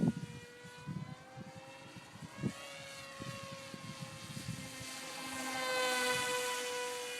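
Hawk Sky remote-control plane's propeller motor whining steadily in flight, its pitch bending around three seconds in and growing louder about five seconds in as the plane comes closer. Low wind buffets on the microphone underneath.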